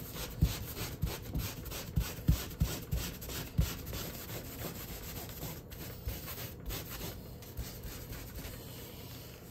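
Wet wipe scrubbing quickly back and forth over wet acrylic paint on paper laid on a board, wiping the paint layer off. There are several strokes a second, with a few dull bumps of the hand against the board in the first few seconds.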